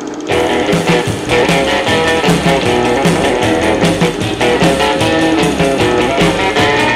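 Guitar-driven rock music with a steady beat, after a momentary drop at the very start.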